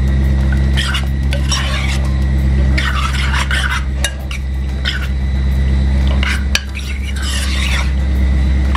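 Metal spoon stirring and turning seasoned raw chicken thigh pieces in a bowl, in irregular strokes, over a steady low hum.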